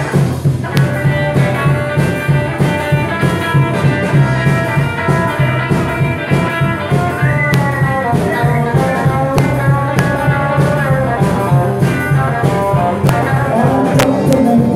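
Live band playing with electric guitars and a drum kit, a steady beat, with a note bending upward about seven seconds in.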